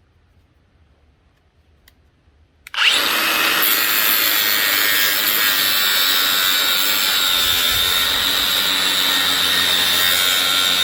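Power grinder starting up about three seconds in and then running steadily, grinding away the steel inner race of a worn-out steering-neck roller bearing on a motorcycle's steering shaft. It gives a high, steady whine over a harsh grinding hiss.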